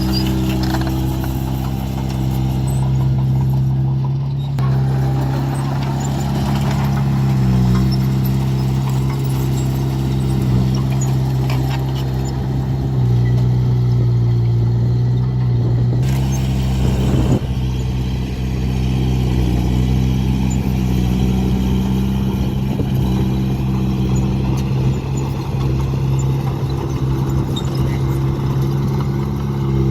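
Heavy diesel engine of road construction machinery running steadily at a low, even pitch, with abrupt changes in the sound about four and a half seconds in and again around seventeen seconds in.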